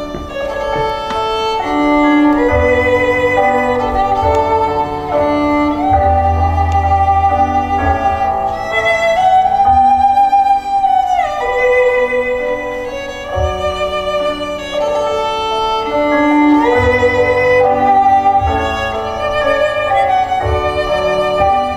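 Instrumental music: a melody moving note to note over a low accompaniment, with one note sliding down about ten to eleven seconds in.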